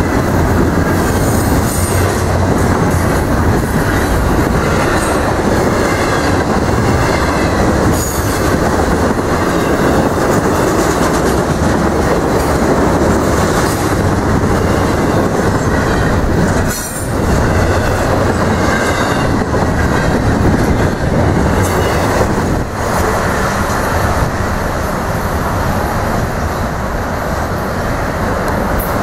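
Double-stack intermodal freight train of well cars rolling past close by: a loud, steady rumble and clatter of steel wheels on the rails, easing off slightly in the last few seconds.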